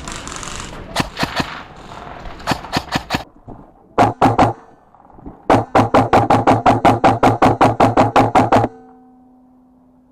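Short bursts of rapid, sharp shots from an airsoft gun over outdoor noise. Then, with the background cut away, a clean run of fast, evenly spaced pitched knocks stops suddenly, leaving a held low tone.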